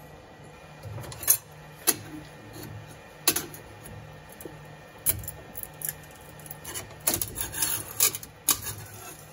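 A metal scraper pries and scrapes a freshly 3D-printed plastic part off a 3D printer's build plate, giving sharp clicks and scrapes at uneven times, with a cluster near the end. A low hum runs underneath.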